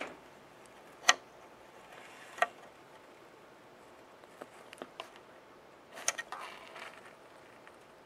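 Pet striped skunk shifting and stretching on a towel inside a hollow log: two sharp clicks about a second and two and a half seconds in, a few softer ticks, then a brief rustle with clicks about six seconds in.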